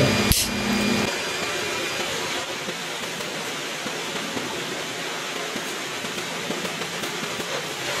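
Steady rushing air noise of an electric fan, with one sharp metal click near the start as a hand tool strikes the snap-button press's shaft, and a low hum that stops about a second in.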